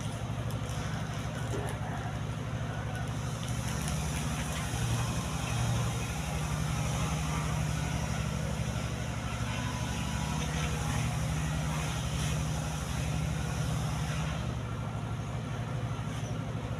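An engine idling steadily, a low even drone with a fast regular pulse.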